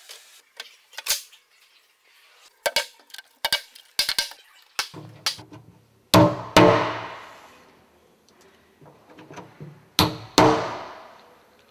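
A series of clattering knocks as a metal frame is set onto a black plastic Langmatz manhole chamber, then two pairs of hammer blows struck inside the chamber. Each blow rings out and fades over about a second.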